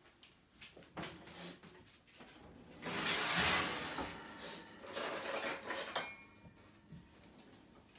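Kitchen clatter of dishes and utensils being handled at the counter: scattered knocks, a dense noisy rustle about three seconds in, then a run of clinks and clatter about five seconds in.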